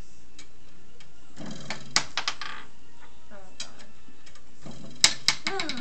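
A small projectile clacking against a wooden tabletop basketball hoop toy in two bursts. About two seconds in there is one sharp clack followed by two lighter ones; about five seconds in there is a sharp clack followed by a quick rattle of smaller ones as it bounces.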